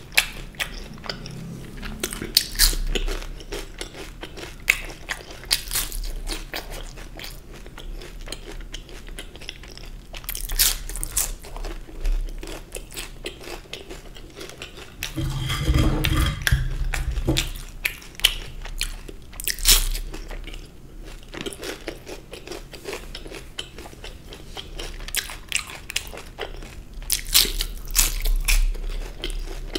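Crisp jalebi being bitten and chewed close to a microphone: sharp crunches at irregular moments between quieter chewing.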